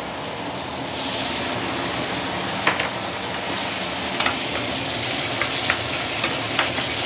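Okra and sambal frying in a nonstick pan, the sizzle swelling about a second in as hot water goes into the hot pan, then hissing steadily. A wooden spatula stirs and knocks against the pan now and then.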